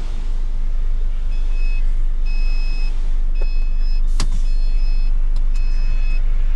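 Dump truck's diesel engine running steadily, heard from inside the cab, while a reversing alarm starts beeping about a second in, roughly once a second. A single sharp click about four seconds in.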